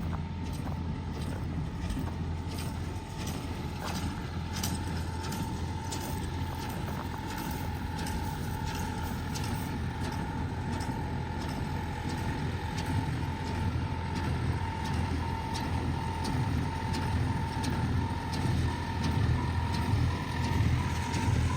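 Tractor-mounted square baler working paddy straw, driven by the tractor's engine: a steady engine drone and whine with regular short knocks from the baling mechanism.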